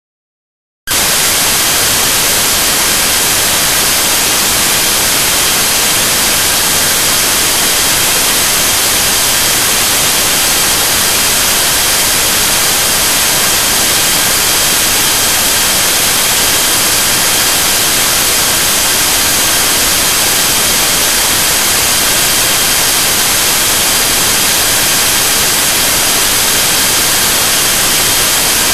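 Loud, steady static hiss, cutting in abruptly about a second in, with a few faint steady high-pitched tones running through it.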